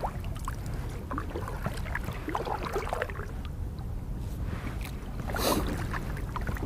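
Water lapping and small splashes around a kayak hull being paddled, with one louder rushing splash about five and a half seconds in, over a steady low rumble.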